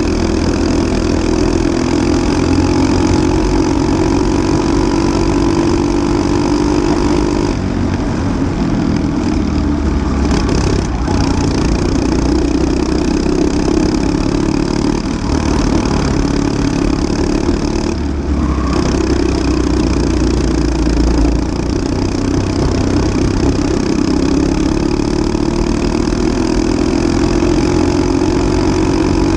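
Briggs & Stratton LO206 single-cylinder four-stroke kart engine running under race load, heard onboard. Its note holds steady, drops abruptly about a quarter of the way in as the throttle comes off, then climbs steadily near the end as the kart accelerates down a straight.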